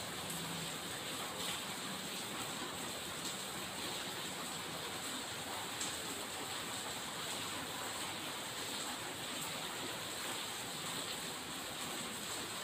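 Steady background hiss with no distinct event, broken only by a few faint ticks.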